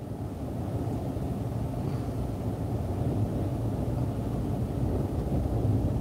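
Waves surging against a rock breakwall and washing over a flooded road, heard from inside a car as a steady low rumble that builds slightly toward the end.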